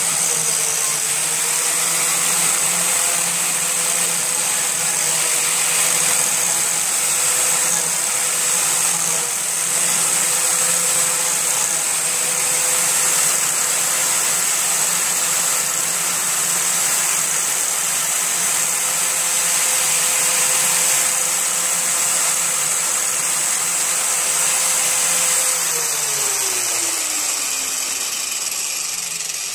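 Corded angle grinder with a sanding disc running at a steady pitch, grinding down a hot-glue patch on a plastic lawn tractor hood. About 26 seconds in it is switched off and winds down, its pitch falling steadily.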